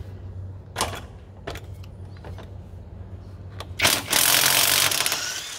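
Impact wrench with a 14 mm socket hammering for about a second and a half near the end, loosening one of the bolts that hold the rear wheel hub bearing assembly. A few light metal clicks come before it as the socket is fitted.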